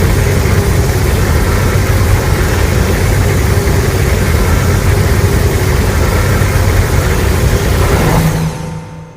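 Kaiju monster sound effect: a loud, steady, deep rumble that fades away about eight and a half seconds in.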